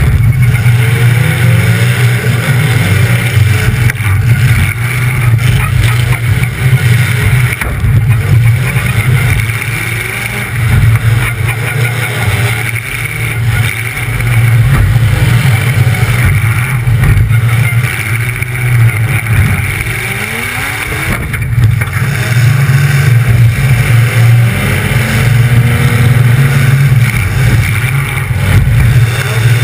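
Demolition derby car engine running loud through open exhaust stacks, a steady low drone with repeated revving up and down.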